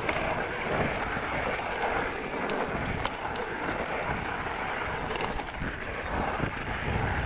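Electric mountain bike rolling fast over a rocky dirt trail: a steady rush of tyre and wind noise with scattered small clicks and rattles from stones and the bike.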